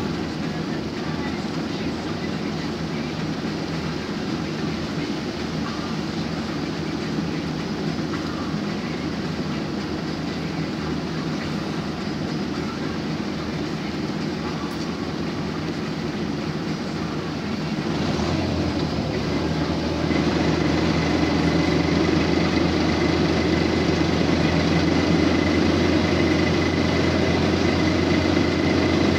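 PAZ-32053 bus heard from inside the cabin, its engine and road noise running steadily while it drives; about 18 seconds in the sound turns into a louder, steadier low engine hum as the bus settles to an idle, with a thin high whine joining shortly after.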